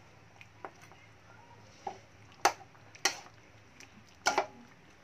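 Metal ladle clinking against a metal cooking pan (kawali) while basting and stirring braising pork hocks in their sauce: about five short, sharp clinks, two of them in quick succession near the end.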